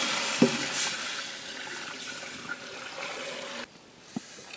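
Water being poured into a large cooking pot for the mandi rice: a steady splashing pour that slowly thins and cuts off suddenly near the end. One short knock about half a second in.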